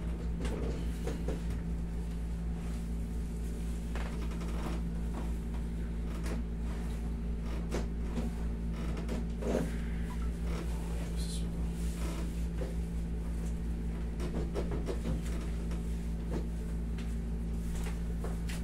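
Steady low hum of a window air conditioner, with scattered soft creaks, rustles and light knocks as hands press and rub a person's back on a padded massage table.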